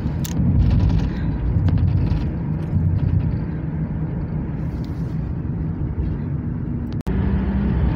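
Steady low road and engine rumble heard from inside a moving vehicle on a highway. About seven seconds in, it cuts out abruptly for an instant and then resumes.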